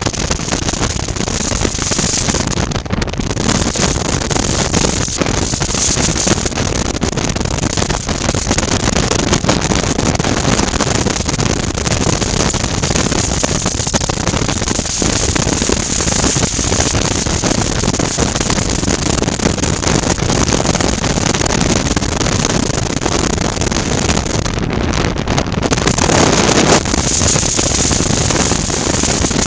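2019 Suzuki V-Strom 650's V-twin engine running at steady road speed, mixed with wind rushing over a helmet-mounted camera. The noise grows louder for a moment near the end.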